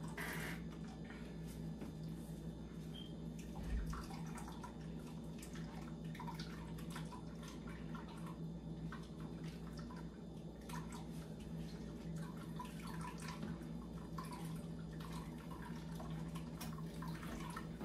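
Pineapple and cucumber juice dripping and trickling from a hand-squeezed cheesecloth bag into a plastic pitcher, in scattered small drips over a steady low hum.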